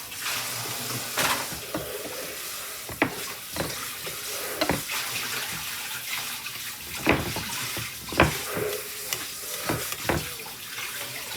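Mashed strawberries and honey being stirred in a bowl: a steady wet, sloshing hiss with irregular sharp clicks and knocks every second or so.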